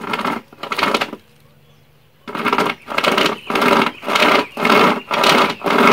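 Hand-pulled pocket chainsaw chain sawing through a wooden stick: rasping back-and-forth strokes, two at first, a pause of about a second, then a steady run of about two strokes a second.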